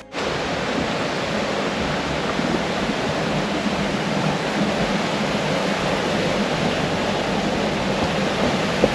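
Steady rushing of water in a gorge stream or waterfall, a constant even hiss that starts abruptly and holds level.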